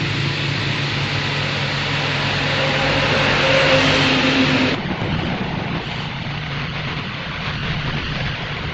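Wood lathe running, its motor humming steadily as it spins a turned wooden vase. A hiss over the hum grows louder through the first half and drops off suddenly about halfway through.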